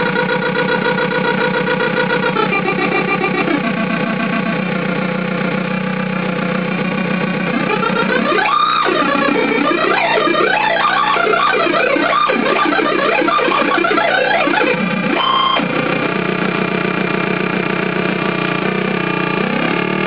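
Joystick-controlled synthesizer sounding a loud, steady drone with many overtones; from about eight seconds in to about fifteen the pitch sweeps up and down rapidly and erratically, then settles back into the steady drone.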